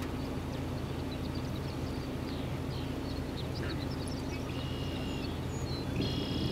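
Birds chirping in many short high notes, with two longer, multi-toned calls in the second half, over a steady low hum.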